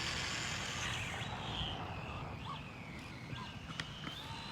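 Faint, distant whine of a fast electric RC car's motor after a high-speed run, with a low rumble of wind on the microphone and a few light clicks.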